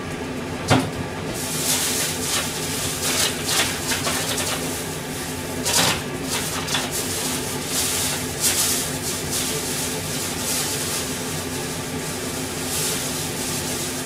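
A pot of vegetables in water heating on a gas stove burner for miso soup: a steady low hum with irregular hissing rushes. Two sharp knocks come about a second in and again about six seconds in.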